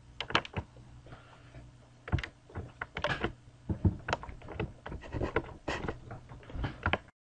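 Irregular clicks and knocks of a computer keyboard and mouse being worked, more than a dozen spread over several seconds, some with a dull thump, over a faint low hum.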